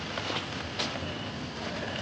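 Footsteps of someone walking along a village path, a few separate steps, over a steady low rumble of background noise.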